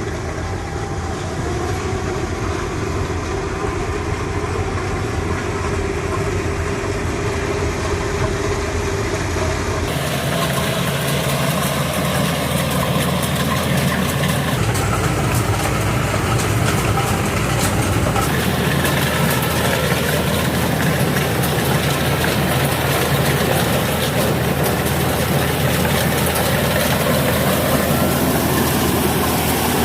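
Kubota DC70 combine harvester's diesel engine and machinery running steadily.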